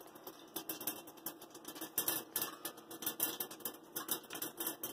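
Black mustard seeds popping in hot vegetable oil in a covered pot: quick, irregular crackling clicks, growing denser and louder about two seconds in.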